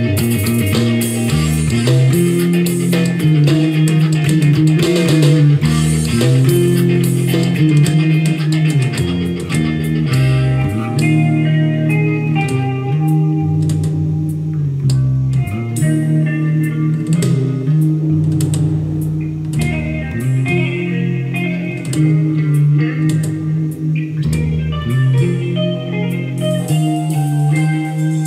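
Electric bass guitar playing a steady rock bass line along with a full band recording of guitars and drums.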